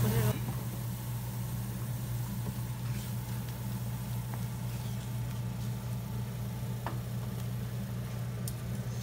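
Onion paste and ground spices frying in oil in a stainless steel pan, faintly sizzling while a wooden spatula stirs them, with a few clicks of the spatula against the pan in the later seconds. Under it runs a steady low mechanical hum, louder than the frying.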